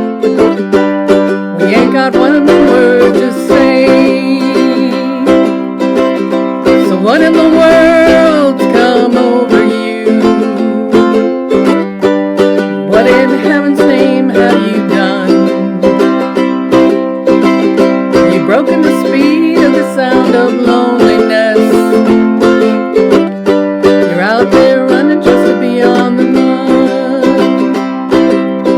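Ukulele strummed steadily through an instrumental break, chords ringing on, with a melody line picked over it around a third of the way in.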